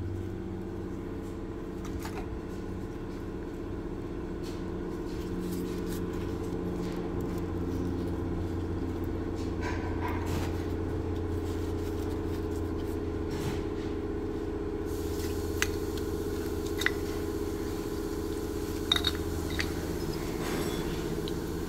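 Steady low machine hum with several held pitches, like a running engine or motor, with a few faint metallic clicks of tool handling in the last few seconds.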